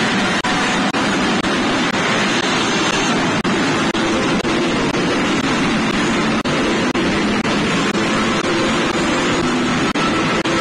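Loud, steady din of a pachinko parlour: steel balls and machines blending into one constant noise, broken by short sharp dips in level about every half second.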